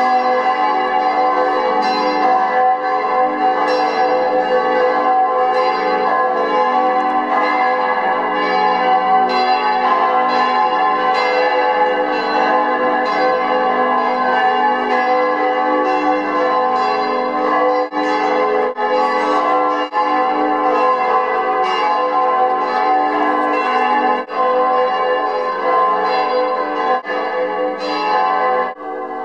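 Several church bells pealing together, their many overlapping strokes ringing on steadily, cutting off abruptly near the end.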